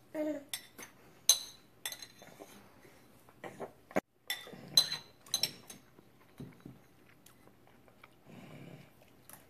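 Toddler's fork tapping and scraping on a plastic high-chair tray: a string of sharp, irregular clicks, the loudest about a second in and near the middle.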